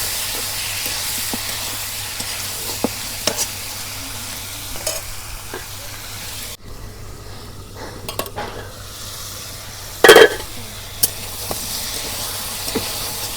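Marinated chicken pieces sizzling in hot mustard oil in a kadai, with spatula scrapes and clicks as they are stirred. The sizzle drops off suddenly about halfway through, and a brief loud thump comes about ten seconds in.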